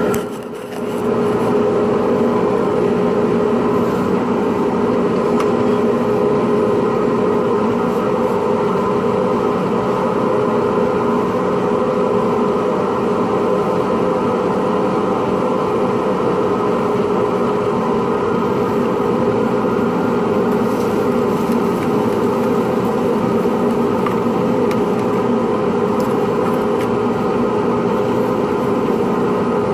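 Pen-turning lathe motor running steadily with a constant hum, spinning a pen blank; the level drops briefly just under a second in, then it runs on unchanged.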